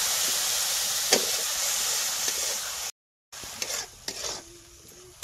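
Wet masala mix sizzling loudly as it hits the hot oil and dry fish in an iron wok, with a sharp clink about a second in. After a brief break about three seconds in, quieter scraping and clicking of a metal spatula stirring the mixture in the wok.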